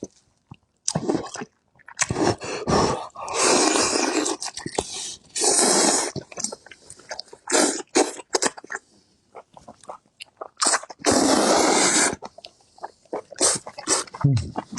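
Close-miked eating: wet chewing and mouth clicks, with three louder noisy bursts of about a second each, around four, six and eleven seconds in.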